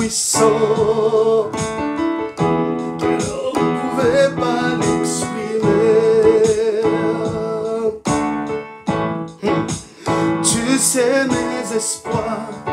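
A man singing a slow French worship song, accompanying himself on a keyboard played with a piano sound. About a second in, he holds the word 'puissant', and then keyboard chords carry on under long, wavering sung notes.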